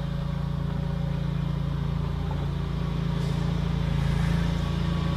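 Steady low mechanical hum with a hiss over it, even and unchanging throughout.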